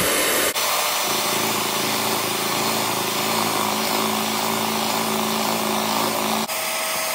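Electric hand mixer running steadily, its wire beaters whirring through beaten eggs and sugar in a glass bowl as they are whipped toward pale and foamy. The sound changes abruptly twice, about half a second in and near the end.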